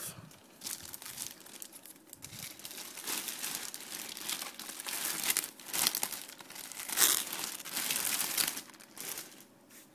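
Clear plastic packaging bag crinkling and rustling in irregular bursts as hands work a small boxed amplifier out of it. It is loudest about seven seconds in and dies away near the end.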